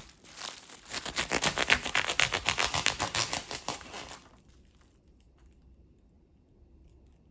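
Crinkling of wrap or packaging being handled, a dense run of small rapid crackles that builds and then stops about four seconds in.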